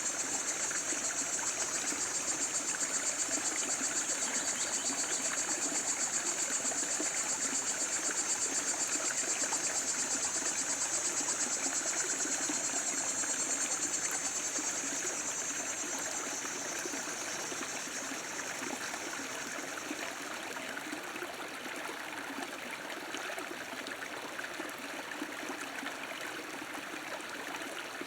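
Stream running steadily, with a high, rapidly pulsing insect buzz over it that fades out a little past halfway.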